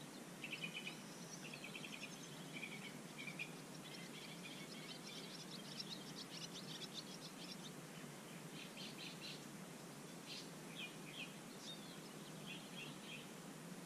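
Small songbirds chirping and trilling in many short calls scattered throughout, over a faint steady background hiss.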